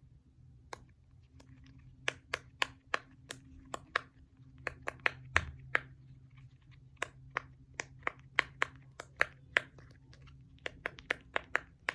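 Bubbles of a Christmas-tree-shaped silicone pop-it fidget being pressed one after another, giving a long run of sharp little pops at roughly three a second, uneven in pace.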